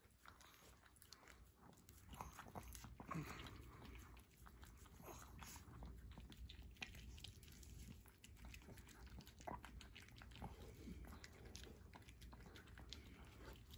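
A Pomeranian puppy licking soft dog ice cream from a small paper cup: faint, quick wet licks and smacking clicks.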